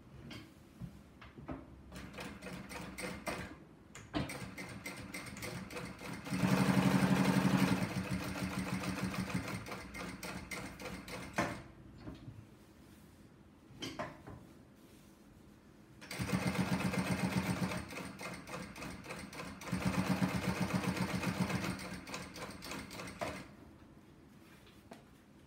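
Jack 6380BC-Q direct-drive walking foot sewing machine stitching leather in rapid, even strokes. It starts with slow single stitches, speeds up to loud fast runs, eases off and pauses partway through, then sews two more fast runs before stopping near the end.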